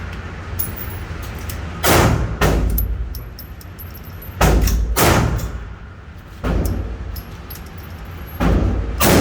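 A slow string of about seven gunshots from a semi-automatic firearm, fired singly and irregularly, some half a second apart and some nearly two seconds apart.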